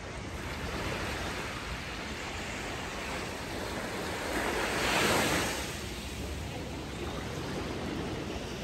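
Sea waves breaking and washing onto a beach, one wave swelling louder and breaking about halfway through.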